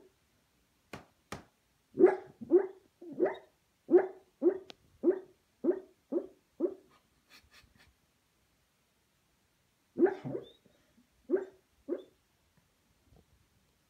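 A beagle barking in its sleep while dreaming: a run of about ten short, low barks growing fainter, then a pause and a few more barks near the end.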